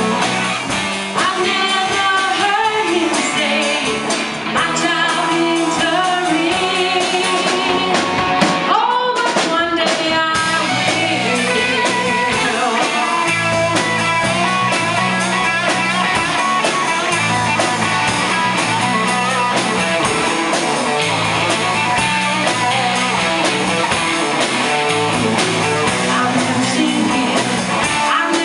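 Vocal group singing a rock-style song with live band backing.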